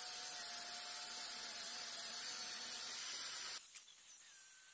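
Angle grinder with a knotted wire brush stripping paint from a cast-iron vise: a steady hiss of wire on metal with a faint motor whine, cutting off suddenly about three and a half seconds in.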